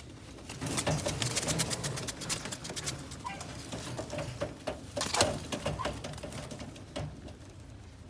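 Lahore pigeons cooing low and repeatedly under a run of sharp clicks and scuffs, which thin out about six seconds in.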